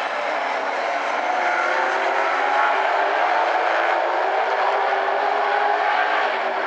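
A field of street stock race cars running hard on a short oval: several engines at high revs overlapping in one steady drone, the pitch drifting a little up and down as the cars work through the turns.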